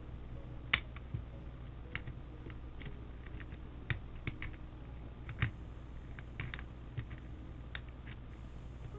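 Light plastic clicks and taps from keycaps on a custom mechanical keyboard being pulled off, pressed back onto their switches and tapped, about twenty at irregular intervals over a steady low hum.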